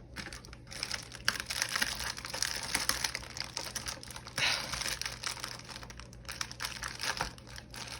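Plastic packaging crinkling and rustling as it is handled and opened by hand, with many small crackles and a louder crinkle about four and a half seconds in.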